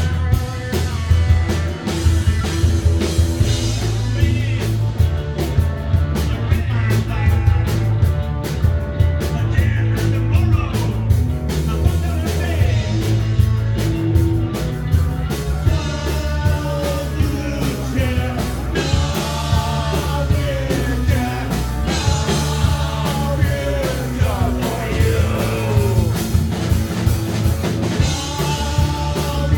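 Punk rock band playing live, with drums, bass and guitar in a steady driving beat. A singer comes in about halfway through.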